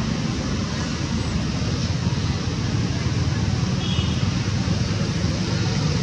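Steady rumble of a motor vehicle engine running nearby, with a short high-pitched chirp about four seconds in.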